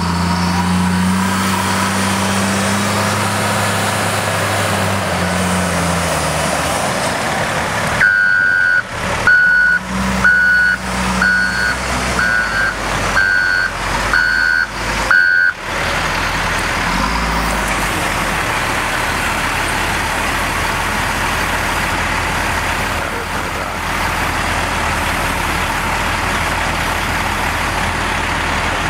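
Caterpillar 938G wheel loader's diesel engine running steadily while it handles a heavy log. From about eight seconds in, a reversing alarm sounds about seven times, roughly once a second, as the loudest sound here; then the engine runs on.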